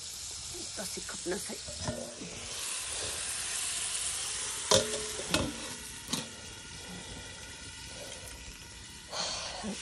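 Fish curry sizzling in a steel wok, a steady hiss, with a few small knocks early on. About halfway through come three sharp metal clanks with a brief ring as the steel lid and spatula strike the wok.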